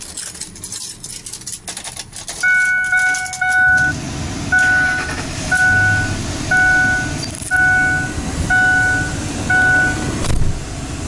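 Keys jangling at the ignition of a 2006 Ford F-150, then a dashboard warning chime repeating about once a second while the 4.6-litre V8 starts and settles into a steady idle.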